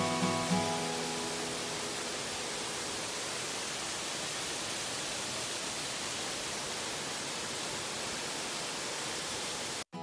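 Steady, even rushing noise of a waterfall pouring into its plunge pool, after guitar music fades out in the first second. The water sound cuts off suddenly near the end.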